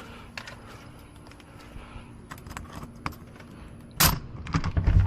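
Small metallic clicks and scrapes of a just-picked door lock being worked with pick tools, then one loud sharp clack about four seconds in as the lock opens, followed by low thuds.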